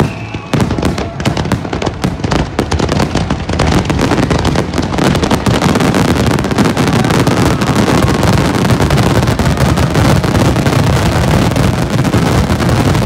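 Fireworks finale: many shells bursting in quick succession, the reports running together after a few seconds into a continuous, dense crackling barrage.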